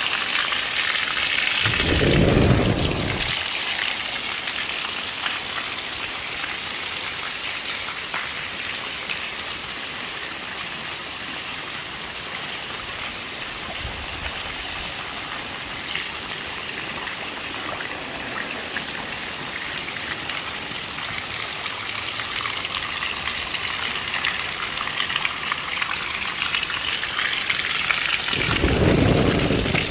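Heavy rain falling steadily, an even hiss of drops on surfaces, with two brief low rumbles about two seconds in and near the end.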